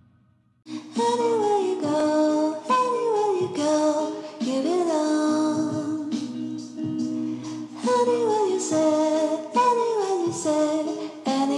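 Background music: a melody with sliding, gliding notes over sustained tones, starting after a brief silence under a second in.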